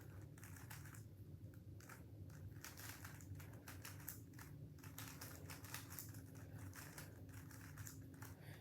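Faint, irregular clicking and rattling of a 3x3 Rubik's cube as its layers are turned quickly by hand.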